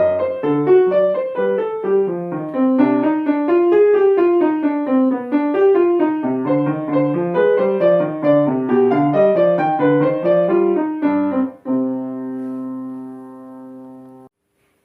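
Piano playing a quick, even run of notes that ends about twelve seconds in on a held final chord, which rings and fades away into silence.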